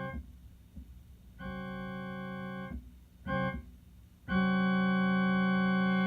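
Electronic keyboard holding a steady chord that imitates a Nathan K2H locomotive air horn, sounded as a long blast, a short blast and a long blast, with the last one the loudest. Together with the blast just before, this is the long-long-short-long grade-crossing signal.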